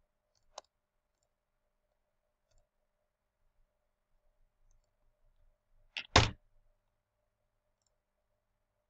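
Computer mouse clicks: one click about half a second in, then a louder pair of clicks about six seconds in.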